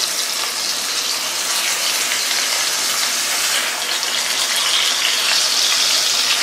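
Cornish hen halves sizzling in hot olive oil in an enameled cast iron pan, a steady hiss that grows a little louder about five seconds in.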